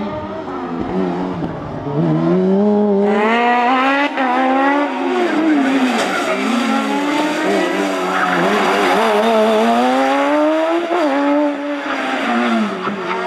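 Suzuki hatchback race car with a Kawasaki ZX-12R motorcycle inline-four engine, revved hard and climbing and dropping in pitch again and again as it accelerates, shifts and brakes between cones. Tyres squeal through the tight turns. It gets louder about two to three seconds in.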